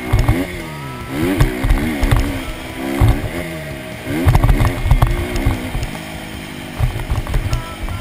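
Dirt bike engine being ridden hard on a motocross track, its revs rising and falling again and again as the rider opens and closes the throttle and shifts, with heavy low thumps and rumble from the rough ground.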